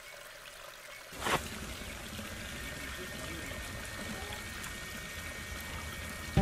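Water trickling steadily from a bamboo pipe spout into a plastic bucket, with one brief louder sound about a second in, after which the running water is fuller.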